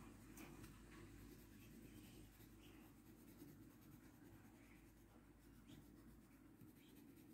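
Faint scratching of a coloured pencil shading on the paper page of a colouring book.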